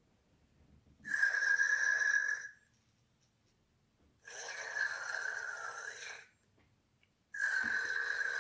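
Cozmo toy robot making electronic snore-like sounds: three breaths, each lasting a second or two and coming about three seconds apart, each with a steady whistling tone inside a hissy rush.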